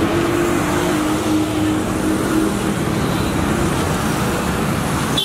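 Road traffic on a busy town street, with motorbikes and other vehicles going by. A passing engine's hum fades out over the first few seconds.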